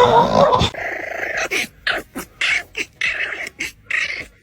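A dog growling and grumbling in a string of short bursts with brief pauses between them.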